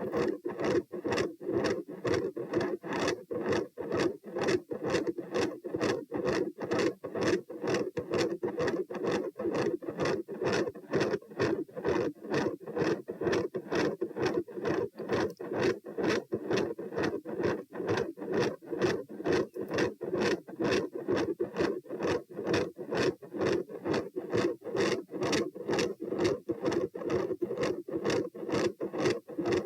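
Human heart sounds heard through a stethoscope over the pulmonic area: a fast, steady rhythm of lub-dub beats with a mid-systolic murmur and a very loud S2.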